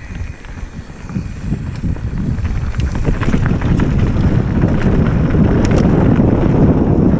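Wind buffeting the camera microphone over tyre and trail rumble from a mountain bike riding fast down a dirt forest singletrack. It grows louder as speed picks up over the first few seconds, with a few sharp clicks and rattles near the end.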